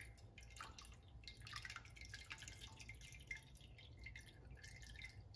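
Faint, irregular dripping and trickling of red automatic transmission fluid as the torque converter's turbine is lifted out of the fluid-filled converter half, over a steady low hum.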